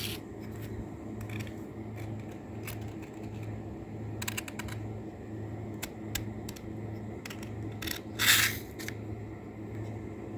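Light metallic clicks and ticks of a machete blade against a cheap handheld sharpener, with a quick rattle of clicks about four seconds in and one louder scrape about eight seconds in, over a steady low hum.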